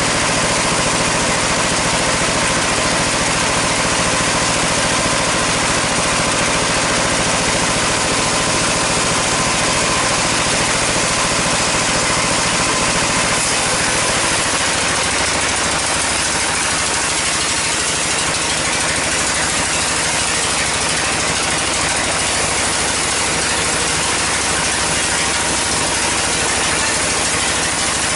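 Band sawmill running steadily between cuts, a dense mechanical din with no log in the blade. The low throb eases about halfway through.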